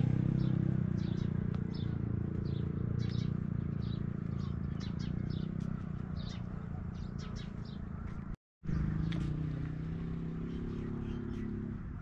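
Steady drone of a small engine that slowly fades, with birds chirping over it throughout; the sound drops out for a moment about eight and a half seconds in.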